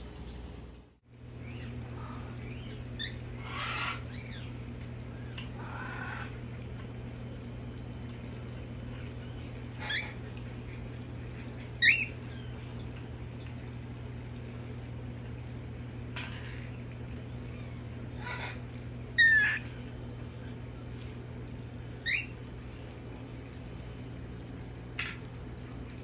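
Young cockatiels giving a handful of short, sharp chirps and squawks, spaced several seconds apart, over a steady low hum.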